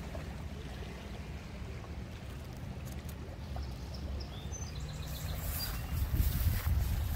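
Wind buffeting the microphone in a steady low rumble that grows stronger near the end, with a few faint high chirps about halfway through.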